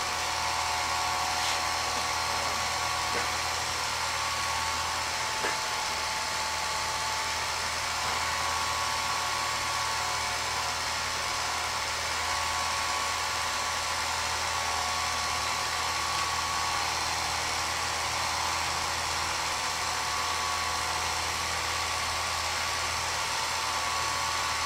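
Home movie projector running: a steady motor hum and whir that stays unchanged.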